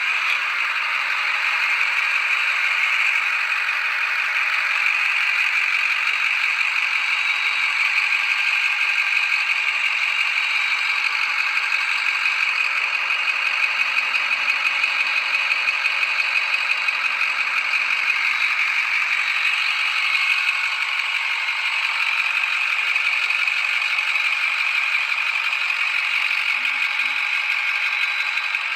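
International VT365 6.0-litre V8 diesel engine running at a steady idle with an even diesel clatter.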